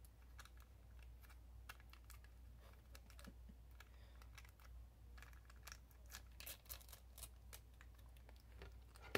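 Faint, irregular clicking and crinkling of long acrylic fingernails handling and picking at a small sauce packet, over a low steady hum.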